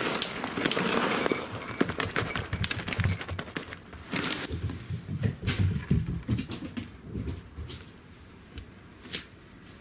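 Dry cat kibble sprinkled into a ceramic bowl, the pieces clattering and some skittering onto the wooden floor. The clicking is dense for the first few seconds, then thins to scattered clicks, with a few low thuds in between.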